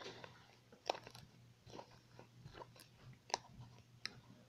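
Thick fluffy slime being squeezed and kneaded in the hands, giving a few faint, irregular sticky clicks and pops as air pockets burst.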